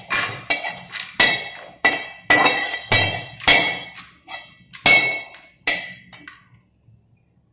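Perforated stainless steel skimmer knocking and scraping against a steel kadhai and a steel plate while roasted chopped nuts are emptied off it. About a dozen sharp, ringing metallic clinks come over the first six seconds.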